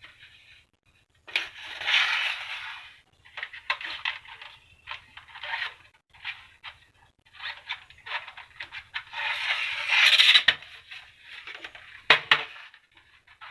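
Handling noises from hands working on parts: irregular scraping and rustling with a scatter of sharp clicks, the longest scrapes about two seconds in and around ten seconds in, and a sharp knock about twelve seconds in.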